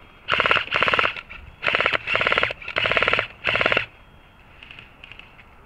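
Airsoft electric gun firing on full auto: six short bursts of rapid clicking shots within about three and a half seconds, followed by two fainter bursts near the end.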